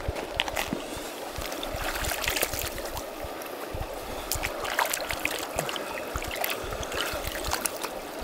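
Shallow stream trickling over rocks, with small splashes and clicks as the water is disturbed.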